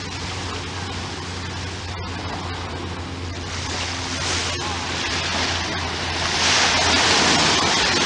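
Small waves washing onto the beach in a steady noise, swelling about halfway through and again near the end, over a steady low hum.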